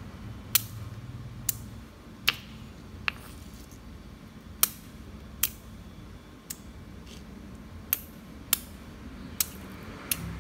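Small pond snail shells being cracked one at a time with a hand-held stone on a hard surface: about ten sharp cracks, roughly one a second, at an uneven pace.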